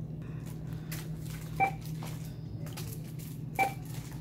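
Two short electronic beeps about two seconds apart from a checkout barcode scanner ringing up items, over a steady low hum.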